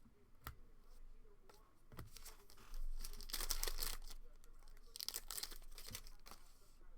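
Trading cards and their packaging being handled: a few light clicks, then two scratchy, tearing rustles about three and five seconds in.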